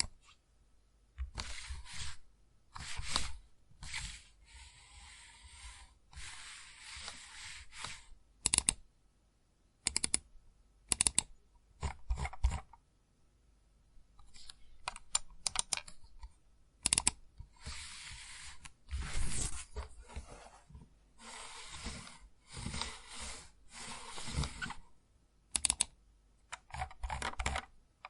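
Computer mouse clicks played as a series of separate sound effects: single sharp clicks, quick double clicks, and longer dense runs of rapid clicking lasting a second or two, with short pauses between them.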